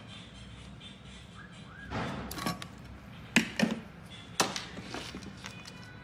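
Sharp plastic clicks and knocks from a small tip switch and its wiring being handled and fitted on a tabletop: a scattering of strikes starting about two seconds in.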